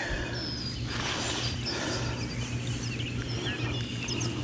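Outdoor ambience: a steady low rumble under small birds chirping in short repeated calls, with sharper chirps coming more often near the end.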